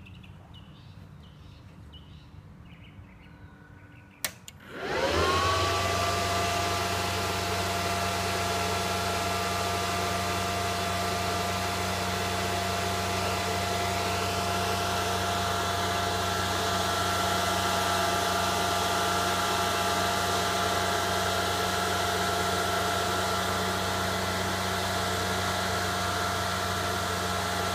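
A click about four seconds in, then the iBeLink ASIC Dash miner's high-speed cooling fans spin up within about half a second to a loud, steady whir with a whine in it. The machine is powering up at the start of its boot sequence.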